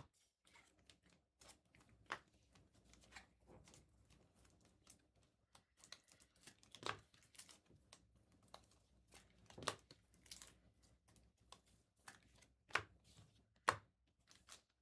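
Faint rustling and crinkling of a trading-card pack's wrapper being torn open, with cards handled, and a few sharper crackles in the second half.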